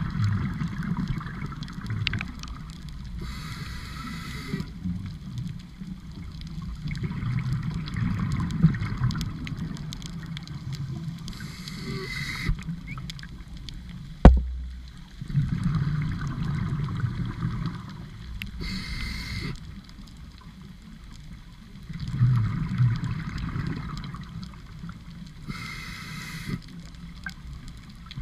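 Scuba diver breathing through a regulator, recorded underwater: a hissing inhale about every seven seconds, four times, with bubbling exhales in between. A single sharp knock about halfway through.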